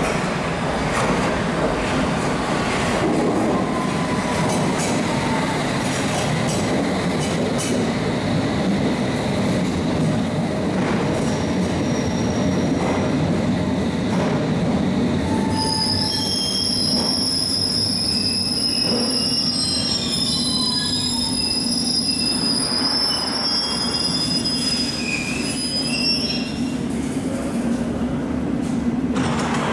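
London Underground S Stock train running into the platform and braking to a stop: a steady rumble of wheels and motors throughout, with high-pitched squealing joining about halfway through and lasting some ten seconds as the train slows, stopping a few seconds before the end.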